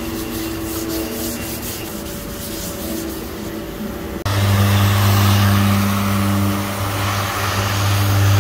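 A car's plastic bumper being sanded to a matte finish before painting. First comes a steady scuffing, rubbing sound. About halfway through there is an abrupt jump to a louder random orbital sander running steadily with a low hum.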